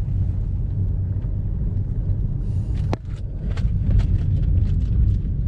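Steady low rumble of a car driving, heard from inside the cabin, on a partly unpaved road. There is a sharp knock about three seconds in, then scattered light clicks and rattles.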